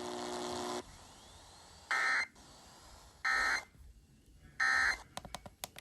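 A held electronic tone cuts off about a second in, followed by three short identical bursts of Emergency Alert System data squeal about 1.3 seconds apart: the end-of-message code that closes the alert broadcast.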